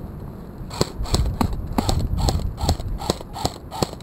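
Airsoft gun firing a quick, irregular string of about a dozen sharp semi-automatic shots, roughly three a second, starting about a second in.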